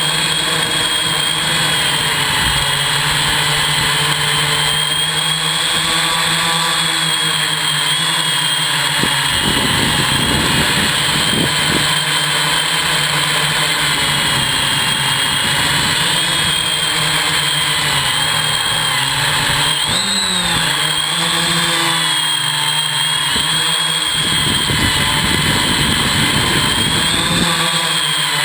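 Hexacopter's electric motors and propellers running in flight, close to the microphone: a steady buzz with a high motor whine that wavers in pitch, and patches of rushing noise about ten seconds in and near the end.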